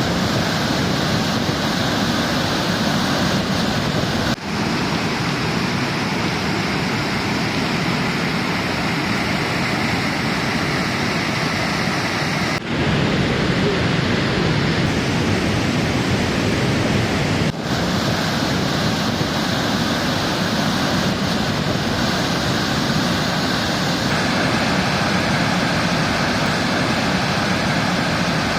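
Waterfall on the Lech river, a steady loud rush of falling water, broken by three short, abrupt dips about 4, 13 and 18 seconds in.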